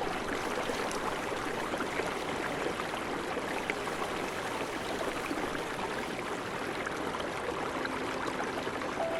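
Steady rushing of water in a mountain stream, a constant hiss with no change in level.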